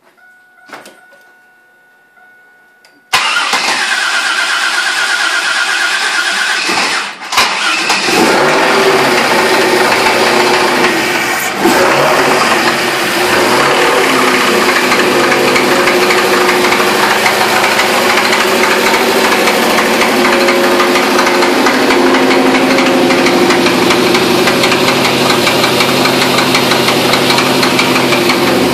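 A GM LS1 5.7-litre V8 cranks and starts about three seconds in, dips briefly near seven seconds, then runs steadily at idle. It has the knock that the owner is showing.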